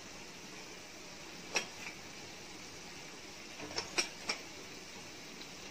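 A few light spoon clicks and taps as chilli powder is spooned into a pan of simmering tomato purée: one sharp click about a second and a half in, then a quick cluster of three or four near the end, over a faint steady hiss.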